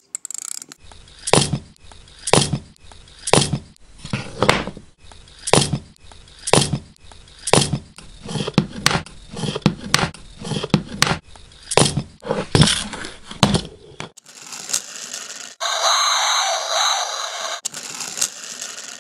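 Toys knocked and scraped in a steady beat of sharp clacks, about one a second at first and about two a second after the middle. About fourteen seconds in the beat stops and a steady rattling buzz takes over, with a high, steady ringing tone through it.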